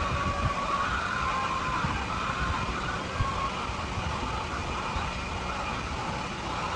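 Steady din of a large flock of chickens calling at once, many overlapping wavering calls, over a low rumble.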